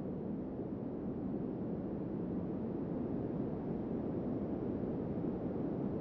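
Wind blowing in a steady, low rush.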